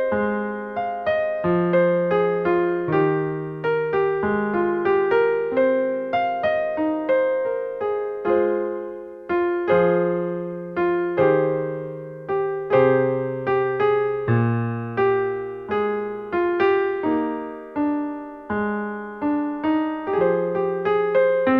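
Solo piano music: a continuous flow of struck notes, each ringing and fading, over lower bass notes.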